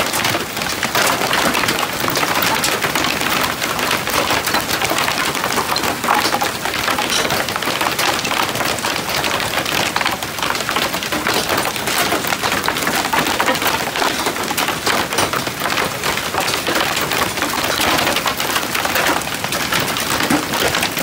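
Hailstorm: large hailstones pelting a wooden deck, a gravel yard and a pickup truck in a dense, continuous clatter of impacts.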